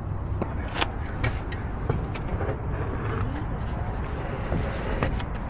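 Steady low rumble of outdoor vehicle noise, with a few short clicks and knocks from work on the jacked-up car's wheel.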